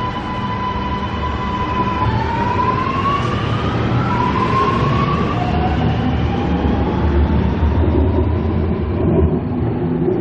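Sydney Metro electric train running over a steady low rumble, its traction motors giving a whine that rises in pitch in several steps as the train gathers speed.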